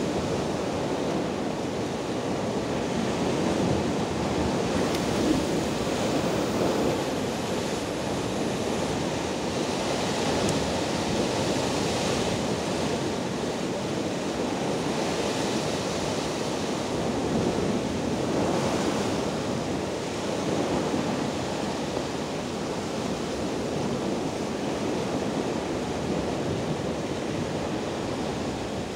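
Rough Black Sea surf breaking and washing over shoreline rocks: a continuous rush of water that swells every few seconds as waves break.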